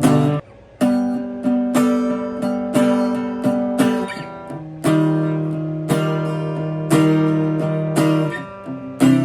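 Acoustic guitar strummed in slow chords that ring out, each strum followed by a sustained chord, with a brief break about half a second in and a chord change near the end.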